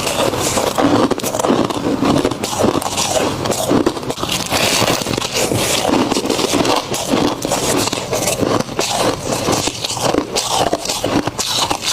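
Freezer frost crunching and scraping close to the microphone as it is bitten and chewed: a dense, continuous run of crisp icy crackles.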